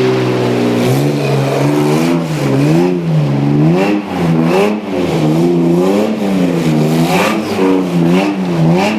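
A car engine held at a steady speed for about a second, then revved up and down over and over, about once or twice a second, as the car does donuts in the snow.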